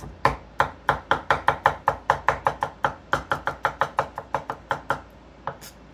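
Chef's knife chopping garlic cloves on a wooden cutting board: a quick, even run of knocks, about five a second, stopping about five seconds in, followed by two lighter taps.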